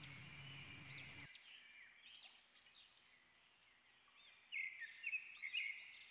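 Faint high bird chirps, with a livelier cluster of louder chirps and short trills toward the end.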